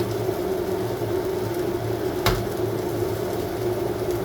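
Steady machine hum, like an air conditioner or kitchen appliance running, with one sharp knock a little past halfway.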